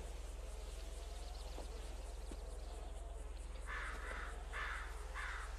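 Dog sniffing and huffing with its head pushed into a small opening in a wall: starting a little past the middle, four short raspy huffs about half a second apart, over a steady low hum.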